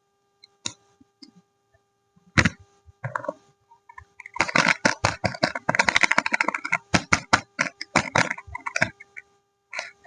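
Soap wrapping being unwrapped by hand: a loud crackle at about two and a half seconds, then a long dense run of crinkling and crackling as the packaging is pulled open.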